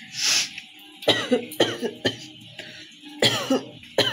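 A woman giving a series of forced coughs for a cough challenge: about five separate, sudden coughs, after a short hissing breath at the start.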